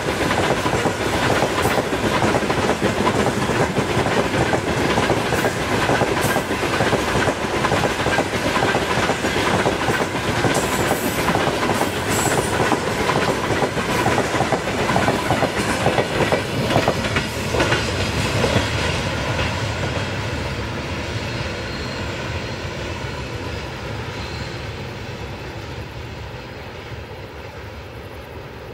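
Freight train of open gondola wagons rolling past, steel wheels clattering over the rail joints in a dense, steady rhythm. About two-thirds of the way through it begins to fade steadily as the end of the train moves away.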